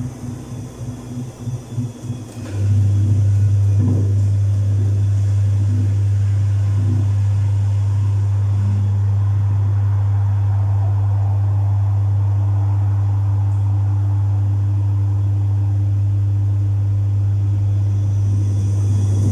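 Domus 8 kg washing machine running a full load: an uneven, pulsing low rumble, then about two and a half seconds in a loud steady low hum starts abruptly and holds level.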